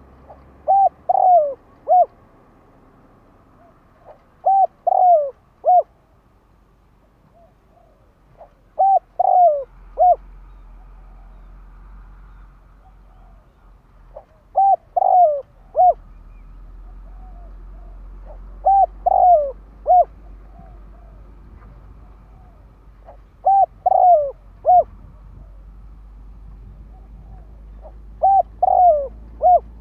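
Decoy spotted dove cooing: seven three-note phrases, the middle note longest and falling, repeated about every four to five seconds.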